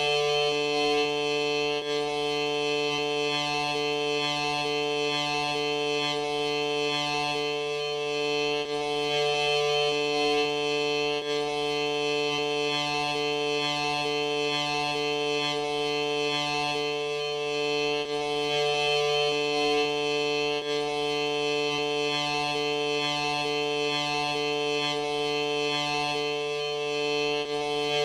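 A sneeze stretched out into an endless drone: a steady, music-like held sound of many sustained tones. One lower tone drops out briefly about every eight to nine seconds.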